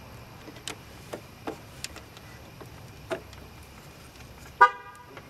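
Small sharp clicks and taps from a plastic quick-splice connector being handled and fitted onto scooter brake-light wiring. Near the end comes a short, loud vehicle horn toot.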